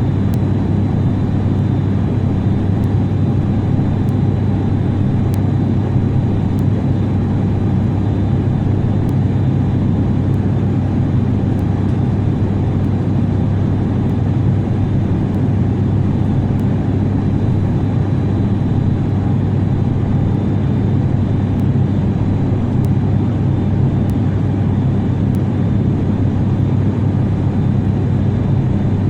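Steady cabin noise inside a jet aircraft: a constant low rumble of engines and airflow, heaviest in the bass, with a faint high steady whine above it.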